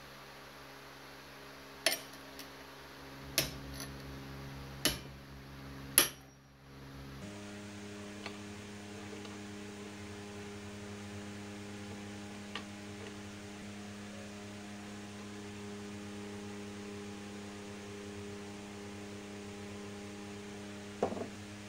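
Four sharp metallic knocks about a second and a half apart, a tool striking a Husqvarna chainsaw's centrifugal clutch to work it loose. After them comes a steady low hum of several even tones.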